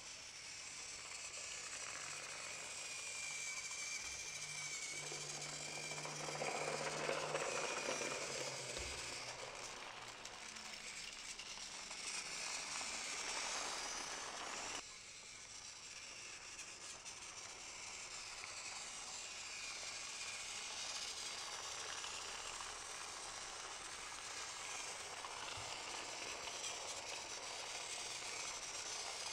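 Battery-powered Trackmaster toy trains running on plastic track: a steady whirring hiss of small motors and rattling wheels. The sound drops suddenly about halfway through.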